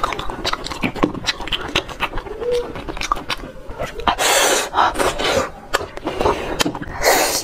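Close-miked wet eating sounds of sea snails in chili sauce being sucked from their shells and chewed: quick lip smacks and clicks throughout, with longer, louder sucking slurps about four seconds in and again near the end.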